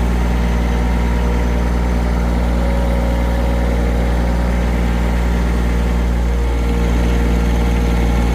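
Tractor engine running at a steady speed, an even, unchanging drone.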